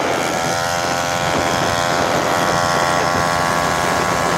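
Small grass-cutter engine fitted to a bicycle, running at a steady speed with a high, even buzzing drone.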